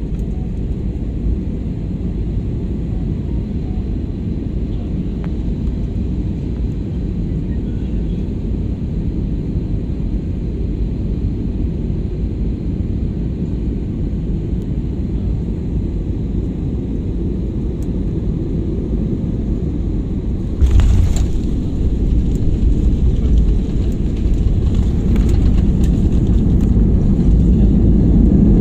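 Aeroplane engine and air noise, a steady low rumble that gets suddenly louder about two-thirds of the way through and keeps building toward the end.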